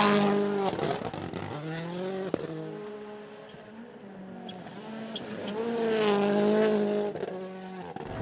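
Rally car engine at high revs, rising and falling in pitch through quick gear changes as the car drives through a stage. It is loudest about the start and again around six seconds in.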